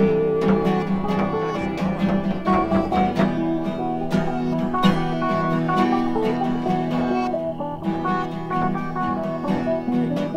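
Acoustic guitar music: a steady flow of picked and strummed notes.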